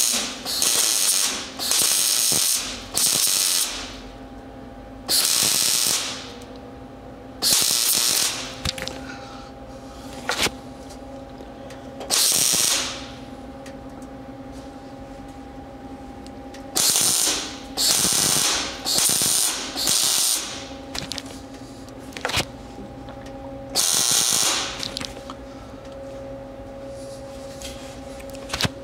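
Wire-feed welder laying a series of short tack and stitch welds on the sheet-steel floor patch panel of a 1961 VW Bus: about a dozen bursts, each half a second to a second long, with pauses of one to four seconds between them and a longer break in the middle. A steady hum carries on under the pauses.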